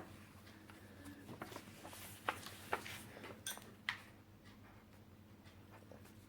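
Faint scratching strokes and light taps of a drawing tool on paper, bunched between about a second and a half and four seconds in, over a low steady room hum.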